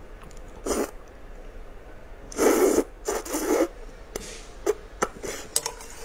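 A person slurping potato noodles from a spicy broth, three slurps within the first four seconds, followed by a few short clicks near the end.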